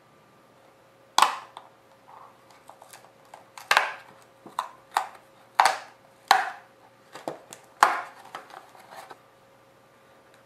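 Paperboard candy box being opened by hand: a run of sharp snaps and crackles as the cardboard flaps and tabs are pried and torn open, about eight loud ones and several softer ones, the first about a second in the loudest.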